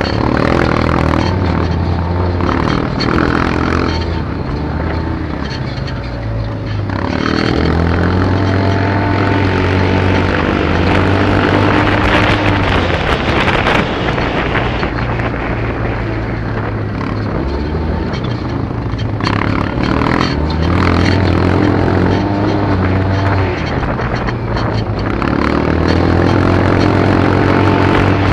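Quad bike (ATV) engine heard from on board, running under load on a dirt track; its revs drop back and climb again several times as the rider eases off and accelerates.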